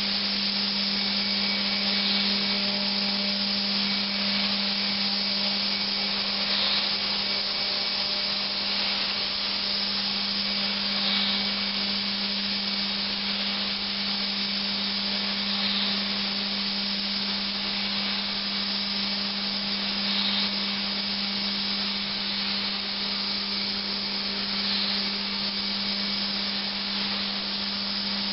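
YCM NSV 102A vertical machining centre hard milling hardened steel: a steady hissing cut over a constant low hum, the cut swelling brighter about every four and a half seconds as the tool passes over the work.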